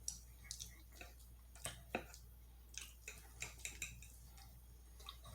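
Close-up eating sounds: scattered small wet clicks and smacks of chewing food, with a faint steady low hum underneath.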